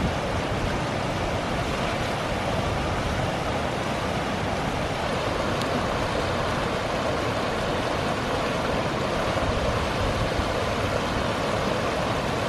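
Steady, even rushing of a river's flowing water, with no let-up or change.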